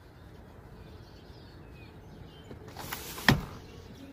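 A house window being pushed open: a short sliding rush that ends in a sharp knock about three seconds in.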